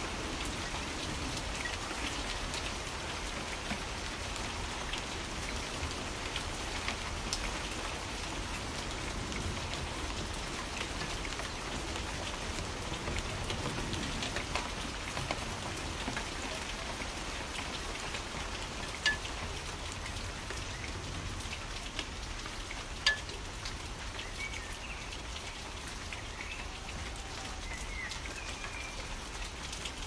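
Steady rain falling, with two sharp, louder drop hits about two-thirds of the way through and a few faint bird chirps near the end.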